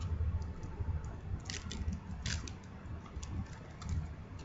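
Faint handling noise of a smartphone being turned over in the hands: soft rustles and a few light clicks and taps, two of them a little sharper about one and a half and two and a quarter seconds in, over a low steady hum.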